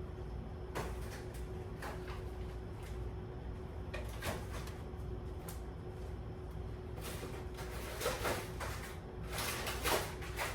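Groceries and fridge drawers or shelves being handled: scattered rustles and light knocks, busier in the last few seconds, over a steady low hum.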